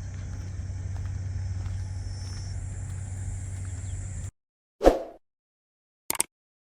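Rice combine harvester's engine running with a steady low rumble, cut off abruptly about four seconds in. A single loud thump follows, then a brief burst of clicks near the end.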